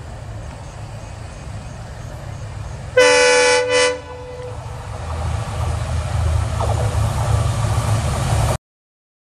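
Locomotive horn sounding twice, a long blast then a short one, about three seconds in, over the low rumble of a train. The rumble grows louder until the sound cuts off abruptly near the end.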